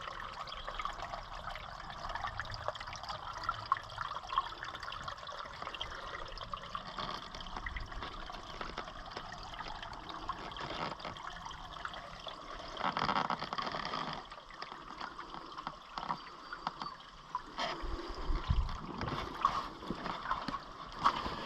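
Fast-running creek water trickling and rushing steadily, with a few faint knocks, a brief louder swell of water about two-thirds of the way through and a dull thump shortly after.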